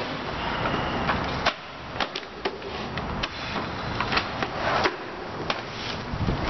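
Paper rustling and papers, folders and books being handled on a metal-mesh table, with many irregular light taps and clicks.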